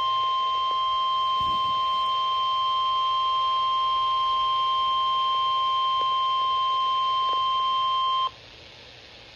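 Emergency alert attention tone, the single steady 1050 Hz warning alarm tone of NOAA Weather Radio, sounding for a flash flood warning. It cuts off abruptly about eight seconds in, leaving a steady hiss of radio static.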